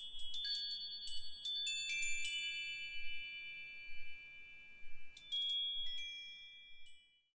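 High-pitched metal wind chimes tinkling, a cluster of quick strikes whose notes ring on and overlap. A second flurry comes about five seconds in, then the ringing dies away before the end.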